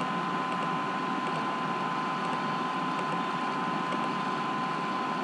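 Steady background hiss with one constant thin whine running through it: the noise floor of a computer's recording microphone. A few very faint ticks sit on top.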